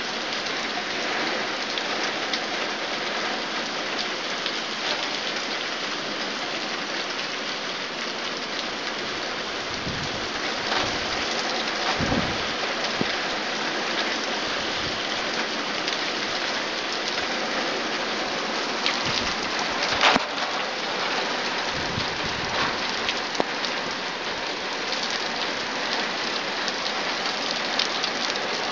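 Torrential rain pouring steadily onto the street and garden, a dense even hiss. A few brief low rumbles come about ten to thirteen seconds in, and a sharp loud tap about twenty seconds in.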